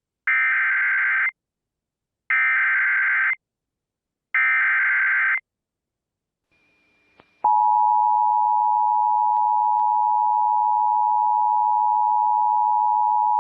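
Emergency Alert System SAME header: three one-second bursts of warbling digital data tones, about a second apart. After a short pause, a steady loud alert tone begins and holds, announcing a new severe thunderstorm warning.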